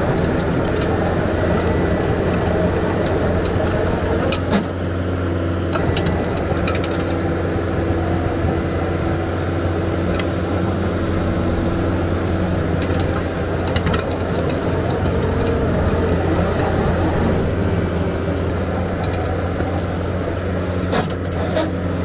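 John Deere 333G compact track loader's diesel engine running steadily while it drives a Reist Rotorake hydraulic power rake through soil. A few brief sharp ticks are heard.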